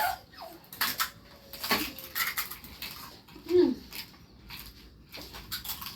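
Eating sounds: crisp pani puri shells cracking and crunching in irregular clicks, mixed with light clinks of dishes. A brief hummed vocal sound about three and a half seconds in.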